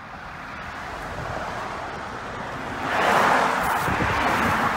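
A car passing close by on the road: tyre and road noise that swells to its loudest about three seconds in, then begins to fade.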